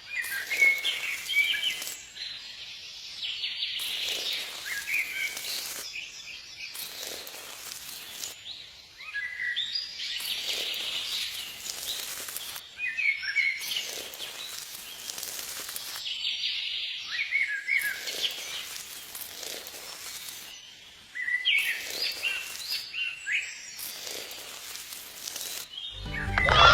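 Birds chirping in short gliding calls every few seconds over a steady outdoor hiss.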